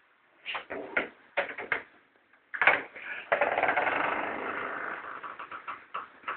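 A door's metal lever handle and latch clicking several times as the door is opened, with a louder knock about two and a half seconds in. Then a dense clattering noise lasts about three seconds and fades.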